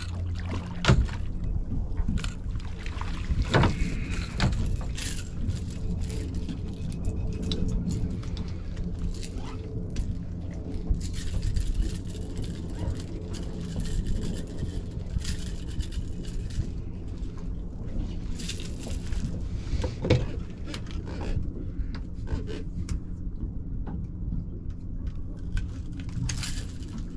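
Steady low drone of a boat motor trolling slowly, with scattered clicks and knocks and stretches of hiss over it.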